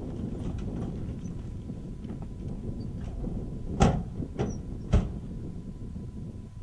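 Two sharp bangs about a second apart, the first the loudest, with a few fainter knocks around them over outdoor wind noise.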